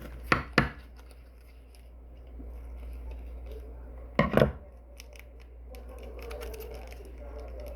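Sharp snipping clicks, like scissors cutting: two just after the start and a louder double snip about four seconds in, over a low steady hum.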